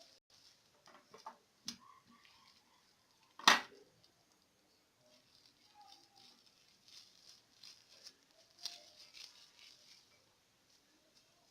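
Hands crushing and squeezing fresh scent leaves (African basil) to wring out the juice: soft scattered rustling and clicks, with one sharp knock about three and a half seconds in.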